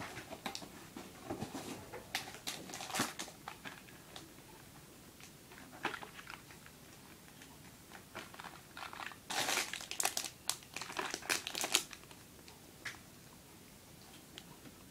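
Wrapping or packaging crinkling and rustling as it is handled, in irregular bursts of crackles, loudest from about nine to twelve seconds in.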